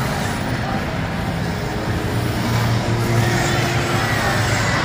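Steady low engine rumble in a large indoor arena, mixed with crowd noise, with faint whines that rise and fall in the second half.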